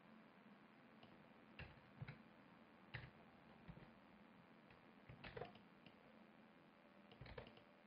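Near silence: room tone with a handful of faint, short clicks from a computer mouse and keyboard.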